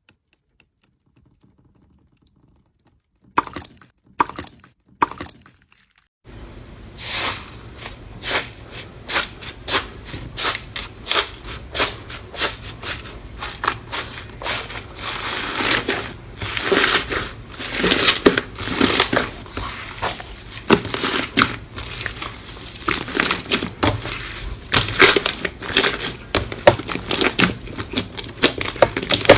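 Near silence, then a few sharp clicks, and from about six seconds in a dense, continuous run of crackling, popping clicks from slime being pressed and squeezed by hand, over a steady low hum.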